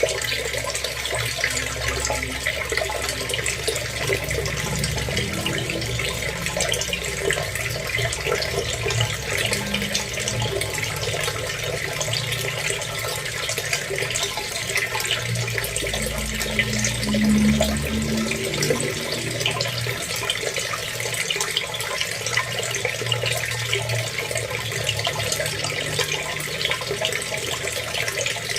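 Water running and splashing steadily, with a brief louder surge about two-thirds of the way through.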